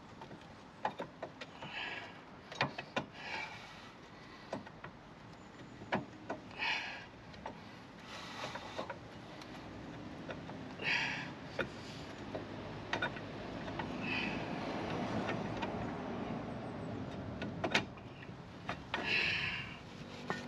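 Rear brake disc of a Land Rover Discovery 3, stuck on its hub, being twisted and worked off by hand: irregular short metallic scrapes and sharp clicks, with a louder click near the end.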